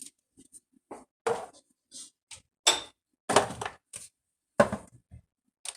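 A handful of short knocks and clunks of kitchen utensils and containers being handled and set down, about five in all, spaced irregularly with quiet between them.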